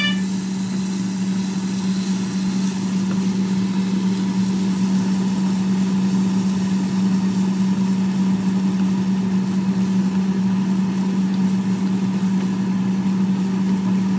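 Steady mechanical hum with one constant low tone over a hiss, like a motor running, unchanged throughout.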